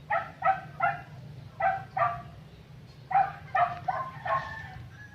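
A dog barking, about nine short barks in three quick runs.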